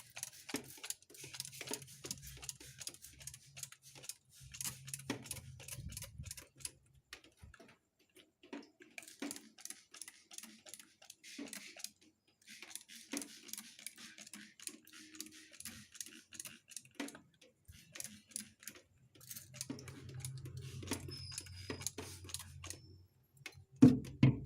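Trigger spray bottle squeezed over and over, each pull a click with a short hiss of spray, in runs with brief pauses. A low hum comes and goes.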